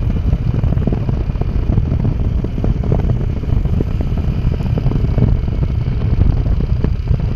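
Road vehicle noise: a loud, steady low rumble with no horn.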